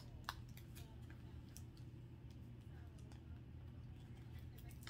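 Faint, scattered small clicks and crackles of a wrapper being picked and peeled off a small package by hand, with a steady low hum underneath.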